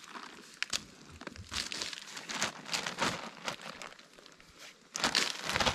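Crinkling and rustling of a rotted old sack being pulled about and opened by hand, with a louder stretch of crinkling near the end.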